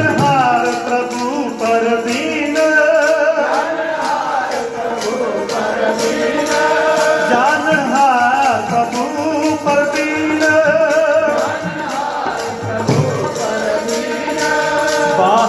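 Sikh kirtan: a voice singing a drawn-out, wavering melody over held harmonium tones, with jingling percussion keeping a steady beat.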